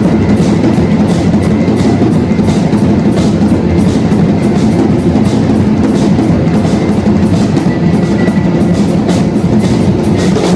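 Rock band playing loudly on a venue stage, drum kit driving a steady beat with regular cymbal strokes over a dense band sound.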